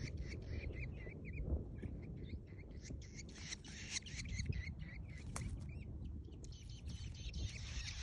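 Grey shrike nestlings begging at the nest as the adult feeds them: a fast run of short, high calls, repeated several times a second, over a steady low rumble.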